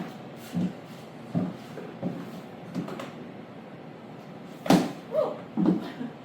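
Footsteps in 6.5-inch platform high heels, a low thud about every 0.7 seconds, stopping briefly midway and picking up again near the end with a sharp heel click and louder steps.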